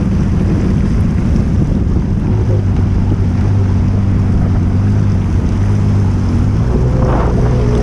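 Jet ski engine running steadily under way, with wind buffeting the microphone; the engine note shifts a little near the end.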